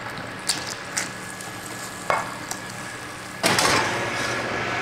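A few light utensil clicks, then from about three and a half seconds in a loud, steady sizzling hiss of food cooking.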